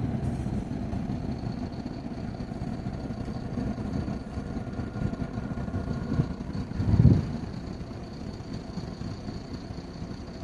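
Coach bus engine running low and steady as the bus moves slowly, heard from inside the cabin, with a short louder low surge about seven seconds in.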